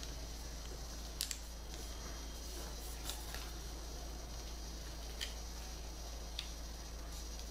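Origami paper being folded and pressed flat by hand: a handful of short, soft clicks and crinkles spread out over several seconds, over a steady low hum and hiss.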